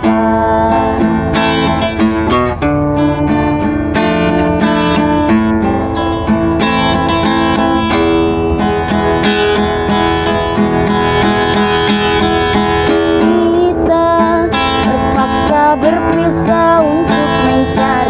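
Acoustic guitar strummed and picked through an instrumental passage of a song, with a steady beat and no clear singing.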